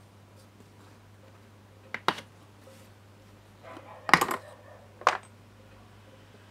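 Plastic latches of a moulded plastic tool case snapping open: a sharp click about two seconds in, a louder cluster of clicks about four seconds in, and one more click about a second later as the lid comes up.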